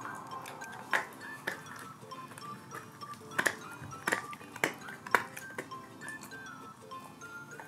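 Dog gnawing a hard chew, its teeth striking it in about half a dozen sharp clicks and knocks over light background music.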